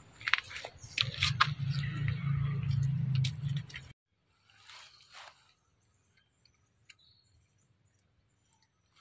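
Macaques chewing and biting fruit: sharp clicks and smacks over a low steady hum for the first few seconds. About four seconds in the sound drops away to a few faint rustles, then near silence.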